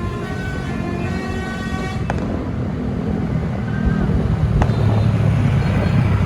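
A bus's multi-tone telolet horn sounds a chord of several steady notes for about two seconds. After it, a heavy engine rumble grows steadily louder.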